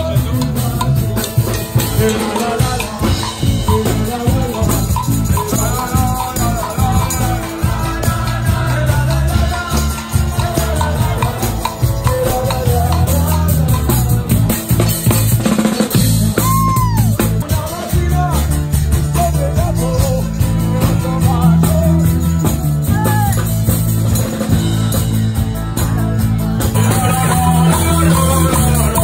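Loud live band jamming: drum kit played hard over a low bass line whose notes change in steady blocks.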